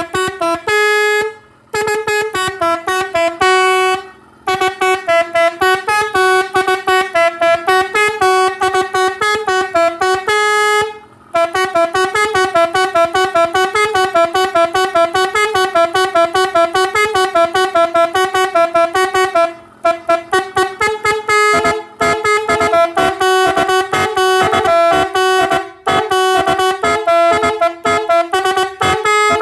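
Three-trumpet basuri musical horn playing melodies of rapid tooting notes that step up and down in pitch, stopping briefly several times between tunes.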